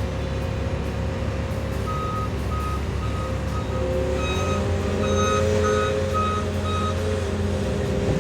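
Diesel engine of heavy equipment running steadily while a backup alarm beeps about twice a second, starting about two seconds in; a second backup alarm joins in about four seconds in.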